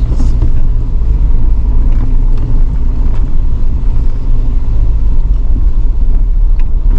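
Vehicle driving on a dirt road: a loud, steady low rumble that starts abruptly, with faint scattered ticks above it.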